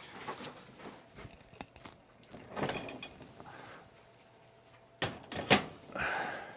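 Bicycle rear wheel being fitted into a recumbent trike's frame: scattered handling rustle, then two sharp clicks about half a second apart as it seats.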